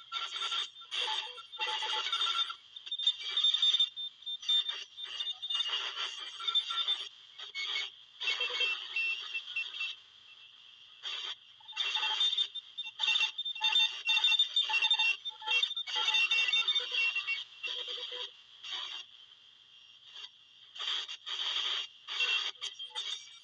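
Shortwave radio tuned to around 14 MHz, giving out irregular bursts of high, buzzing signal noise with steady tones running through them, broken by short silent gaps.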